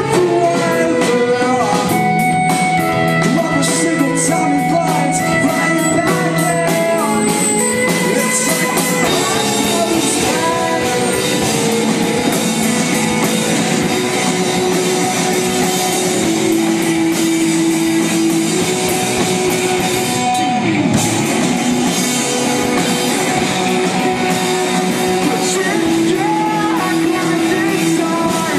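A rock band playing, with singing over guitar and a drum kit.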